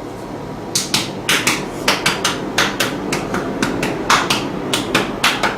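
A quick series of sharp knocks or taps, about four a second and often in pairs, starting about a second in.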